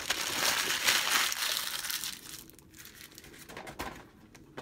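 Paper sandwich wrapper being crumpled into a ball by hand. The crinkling is loudest for about the first two seconds, then thins to scattered crackles, with another short burst near the end.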